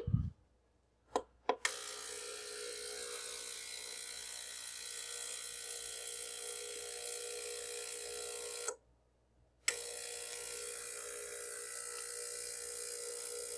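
Two clicks as the ultrasonic cleaner is set, then the ultrasonic cleaner runs with a steady hum and hiss, cleaning model locomotive parts; the sound drops out for about a second near the end and then resumes.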